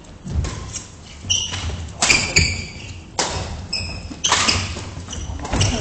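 Badminton rally on a wooden gym floor: sharp racket hits on the shuttlecock and footfalls, echoing in the hall, with short high squeaks of court shoes several times.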